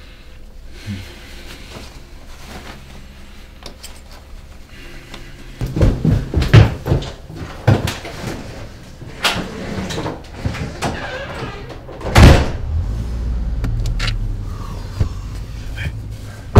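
Quiet at first, then heavy footsteps thumping down a wooden staircase, and a door slamming hard about twelve seconds in. After the slam a car engine runs with a steady low rumble, and a car door shuts at the very end.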